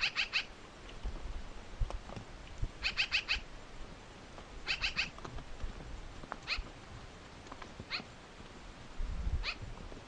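A bird calling: three quick bursts of four or five high, sharp chips, then single short down-slurred calls about every second and a half. A low rumble comes in near the end.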